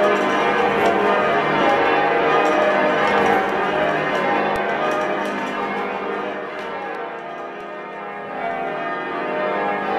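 Ring of eight church bells, cast by Taylors in 1913 with a 24 cwt tenor in E-flat, being rung down (lowered) in peal: the bells strike in quick succession as their swing shortens. The sound dips somewhat about seven to eight seconds in, then builds again.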